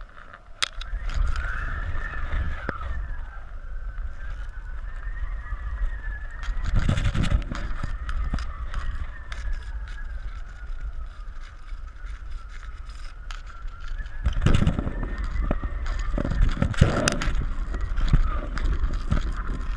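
Wind buffeting the microphone of a GoPro camera hanging below a flying kite, a low rumble that swells in gusts about seven seconds in and again past the middle. Over it runs a thin, wavering whistle-like tone that drifts up and down in pitch.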